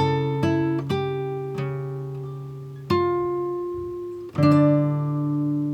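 Background music: a plucked acoustic guitar, single notes followed by chords struck about three seconds in and again near the end, each left to ring and fade.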